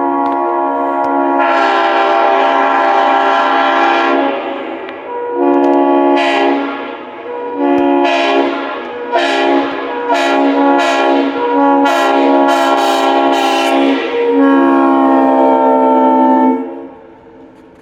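Multi-chime train air horn sounding a chord of several steady notes, blown as a string of blasts: some long, several seconds each, and some short. It stops about a second before the end.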